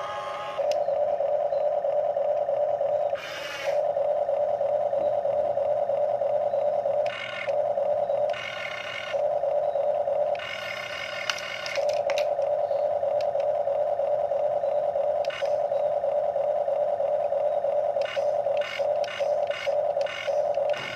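Huina RC excavator's electric motors and plastic gearboxes whining steadily as the boom and bucket move. A harsher grinding takes over a few times as other functions are worked, and near the end the motors cut in and out several times in quick succession.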